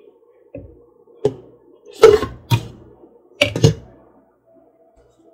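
Tefal glass pot lid knocking and clinking against the rim of a stainless steel frying pan as it is set on and shifted, about six sharp knocks over some three seconds.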